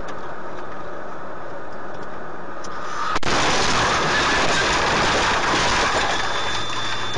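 Steady road noise of a vehicle driving on a slushy winter road, tyre and engine rumble heard from inside the cab. About three seconds in it turns abruptly louder and hissier.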